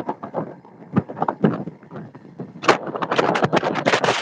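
Wind buffeting the microphone over the rush of the boat's wake, in irregular gusts that get denser and louder a little past halfway.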